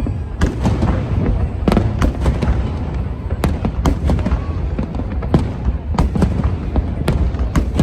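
Fireworks going off in rapid succession, sharp bangs a few times a second over a constant low rumble of the display.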